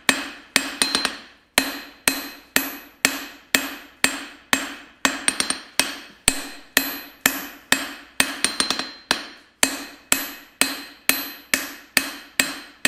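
Hand hammer striking a red-hot steel bar on an anvil in a steady rhythm of about two blows a second, each blow followed by a short metallic ring; now and then a blow is followed by a few quick light taps. The smith is drawing out a four-sided taper at forging heat.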